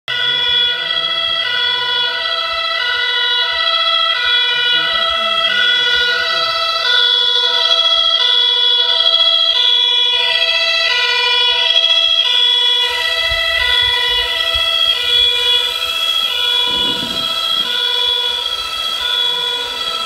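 Two-tone police siren in the German style (tatü-tata) from an RC Mercedes-Benz Arocs police truck, alternating steadily between two pitches about every two-thirds of a second. A low engine-like rumble joins about two-thirds of the way through.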